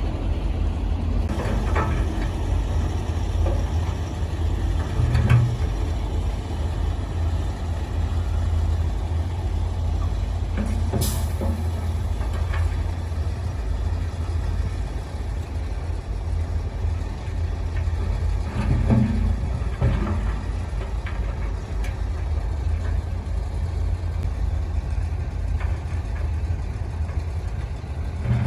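Heavy diesel earthmoving machinery running steadily with a low engine drone, with a few knocks and one brief sharp sound about eleven seconds in.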